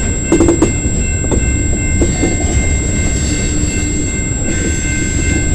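Freight train of tank cars and covered hopper cars rolling past: a steady rumble of wheels on the rails, with a few sharp clanks in the first two seconds.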